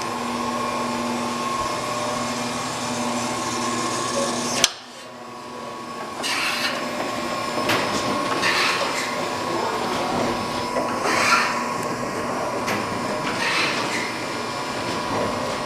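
Okamoto PSG-205 hydraulic surface grinder running with a steady machine hum. A sharp click about four and a half seconds in is followed by a drop in level. From about six seconds in, hissing surges recur every two to three seconds.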